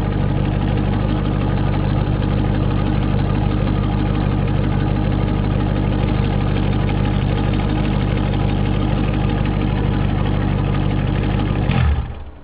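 Corvette engine idling steadily through a straight-pipe exhaust with no mufflers, stock manifolds and high-flow cats. It is loud and deep, then near the end it gives a brief bump and shuts off.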